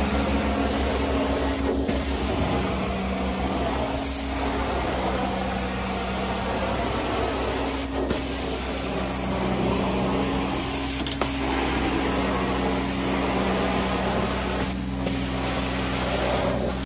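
Carpet-cleaning extraction wand working the carpet: a steady rush of suction air with a low steady hum from the extraction machine. The sound dips briefly several times.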